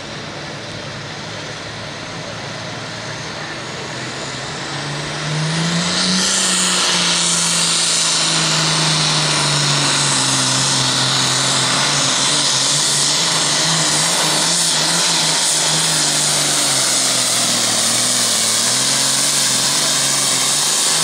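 A John Deere Super Farm pulling tractor's turbocharged diesel engine. It runs lower at first, then opens up to full throttle about five seconds in as it pulls the sled. The engine's pitch sags slowly as the load on the sled builds.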